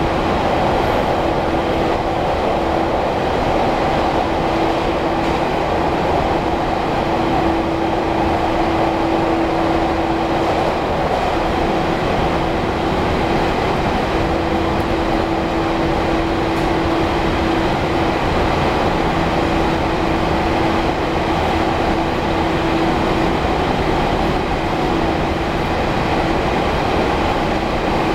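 Running noise heard inside a resistance-controlled JR electric multiple unit, which the uploader takes for a 413 series, while it travels through a tunnel. A steady, loud rumble, with a held motor tone that fades in and out.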